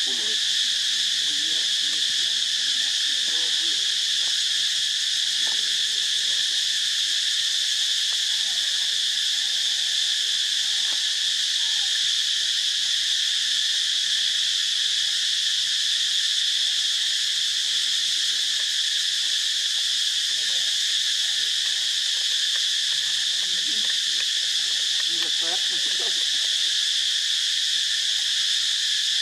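Dense insect chorus: a steady, high-pitched buzzing drone that does not change.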